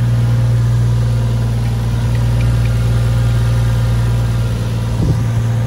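Turbocharged Toyota 1JZ straight-six engine idling steadily.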